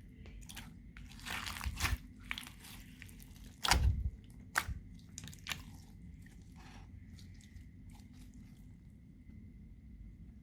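Slime being mixed with added bits, giving sharp crackling clicks in clusters during the first half, the loudest about four seconds in, then sparser and fainter ones.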